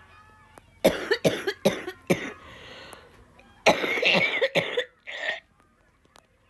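A person coughing: a quick run of about five harsh coughs, then after a short pause a longer bout of coughing, ending with one more cough.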